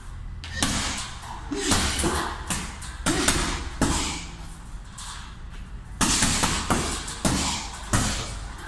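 Gloved punches landing on a hanging heavy punching bag, in short combinations: a few scattered blows in the first four seconds, then a quicker flurry of about half a dozen hits from about six seconds in.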